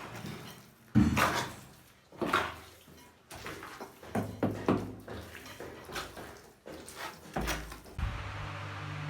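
Irregular knocks and clatter, about eight in all, with a little ringing after each. Near the end a steady low hum starts suddenly and keeps going.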